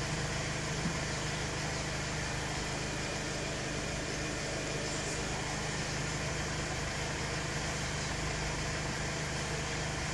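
Car engine idling steadily, heard from inside the cabin: a constant low hum with no change in pitch.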